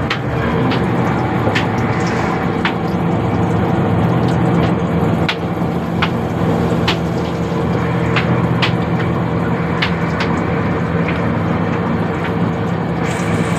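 Battered fish pieces frying in hot oil in a kadai, with sharp pops and crackles scattered through, over a steady low mechanical drone.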